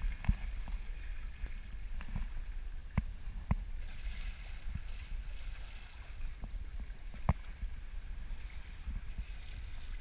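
Water washing and splashing around a sailboat's bow as it moves through open sea, over a low wind rumble on the microphone. The wash swells into a louder hiss about halfway through, and a few sharp knocks come at scattered moments.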